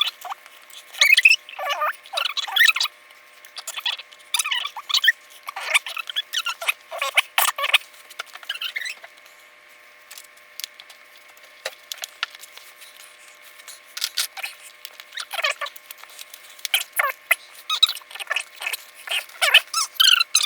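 Small plastic building-set pieces being handled: rattling, scraping and clicking in short irregular bursts, with a quieter stretch around the middle.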